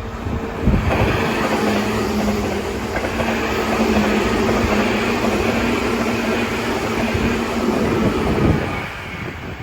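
A Seibu Railway electric train passing close by: loud wheel-on-rail noise with a steady low hum, rising about a second in and falling away near the end.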